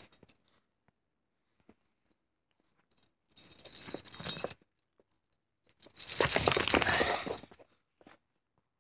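Two bursts of rustling and metallic jangling from a small dog's collar as it wrestles close to the phone, the first about three and a half seconds in, the second longer, about six seconds in.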